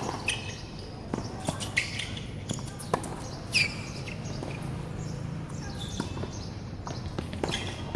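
Tennis rally on a hard court: sharp pops of racket strings striking the ball, loudest at the start, and the ball bouncing on the court, with birds chirping in the background.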